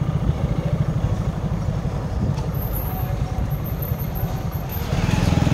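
Low rumble of motor vehicle engines running on the road, louder about five seconds in.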